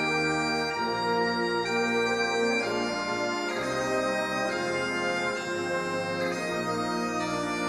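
Bagpipe music: a slow tune of long held notes, changing about once a second.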